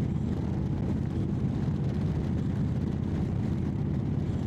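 Indian Chieftain Dark Horse V-twin with Freedom Performance exhaust idling with a steady, even low rumble. A freshly replaced exhaust gasket has cured the exhaust leak.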